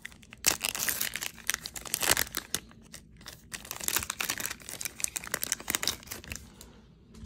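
A 2021 Topps Chrome trading-card pack's foil wrapper being torn open and crinkled by hand, in a run of sharp crackles that dies down near the end.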